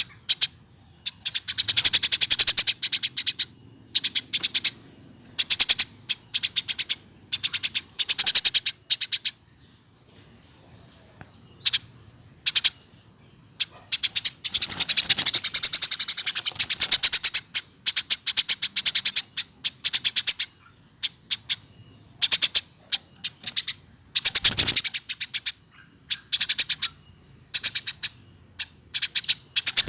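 Eurasian tree sparrow chirping in fast, rapid-fire runs of one to three seconds each, with a brief pause about ten seconds in.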